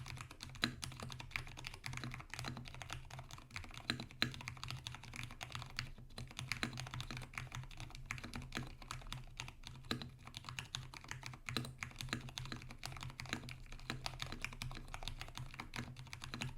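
Continuous, fast typing on a custom-modified Vortex Tab 60 mechanical keyboard with Cherry MX Brown switches. The case bottom is sound-dampened inside and the stabilizers are lubed. A low steady hum lies beneath the key clicks.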